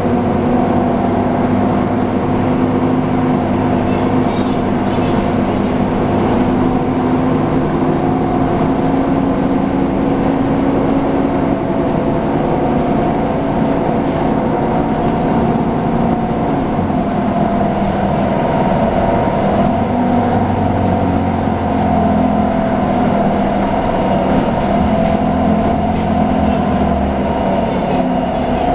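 Nova Bus LFSA articulated city bus under way, heard from on board: a steady engine and drivetrain drone over a low rumble, its pitch shifting a little past the middle.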